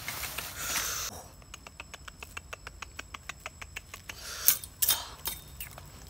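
Leaves and palm fronds rustling as hands reach into a salak palm to pick its fruit, with two louder rustles a little after the middle. Between them, a steady, even ticking of about six clicks a second.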